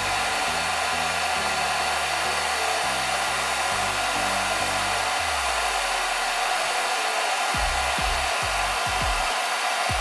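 Xiaomi Mi Ionic hair dryer (CMJ01LX3) blowing steadily on its warm-air setting, an even hiss of air. A few short low thumps come in the second half.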